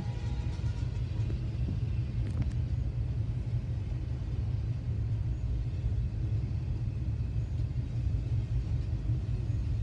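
Freight train of tank cars rolling past: a steady low rumble.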